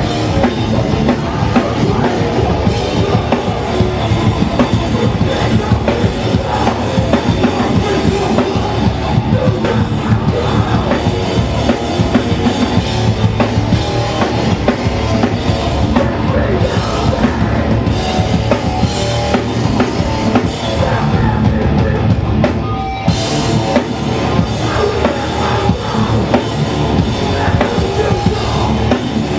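Hardcore punk band playing live and loud: a drum kit driving hard under distorted guitar and bass.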